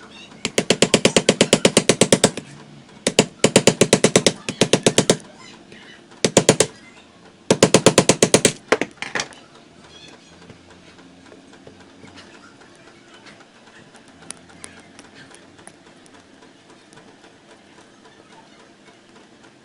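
A power screwdriver hammers rapidly on a seized screw in a fan motor housing, at about a dozen strikes a second. It comes in four bursts of one to two seconds each, then stops, leaving only faint ticks.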